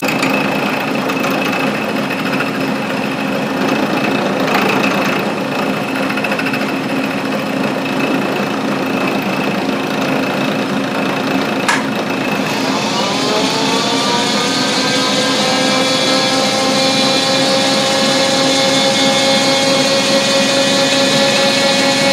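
Milling machine running, its cutter taking a roughly 20-thousandths cut across a stainless steel part. About 12 seconds in there is a sharp click, then a whine rises in pitch and settles into a steady tone.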